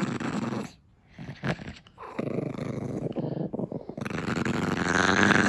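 Small long-haired dog growling as a warning while guarding a chew in its mouth from a reaching hand. It comes in three long stretches, the last louder with a higher snarl.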